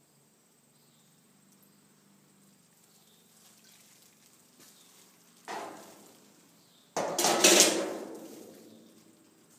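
Water splashing and sloshing in a hydro-dipping tank as gloved hands sweep the surface after a taillight is dipped through the film: a short splash a little past halfway, then a louder, longer splash that fades away over a couple of seconds.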